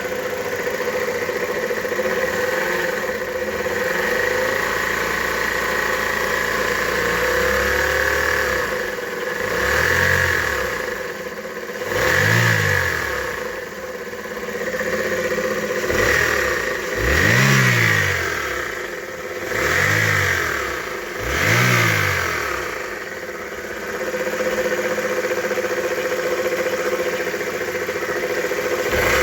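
Chevrolet Aveo's F14D3 four-cylinder petrol engine idling, then revved in a series of about six short blips before settling back to idle. The engine has a knocking and rattling noise that the owner is trying to locate, suspecting a belt roller.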